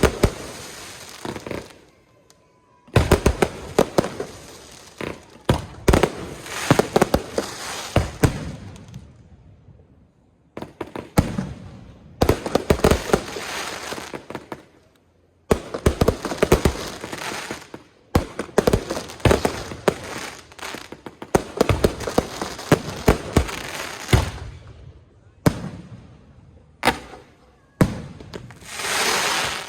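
Aerial fireworks going off in rapid volleys of sharp bangs and crackling, each volley lasting a few seconds with brief lulls between. A smooth rushing hiss comes near the end.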